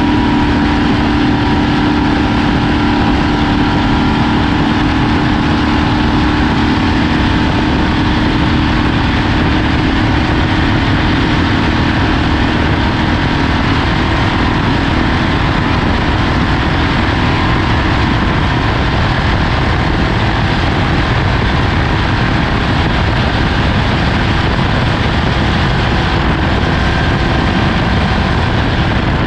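Off-road race vehicle's engine running steadily at speed amid loud, rough driving noise, its steady engine tone sinking into the noise about halfway through.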